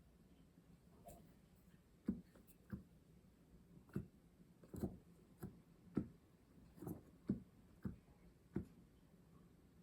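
Keys of a Casio PX-S1100 digital piano's hammer action thumping and clacking as they are pressed and released, about a dozen irregular knocks with no piano tone. It is the mechanical noise of a key action that is a bit noisy.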